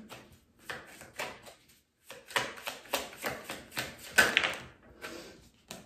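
A tarot deck shuffled by hand, the cards flicking and slapping together in quick, irregular clicks, with a brief pause about two seconds in and a sharper snap a little after four seconds.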